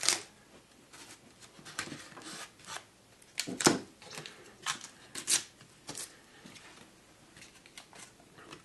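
Blue painter's tape being stretched, torn and pressed down around a glued-up six-sided wooden column to hold the joints tight: a run of short crackling rips and rubs, the loudest about three and a half seconds in.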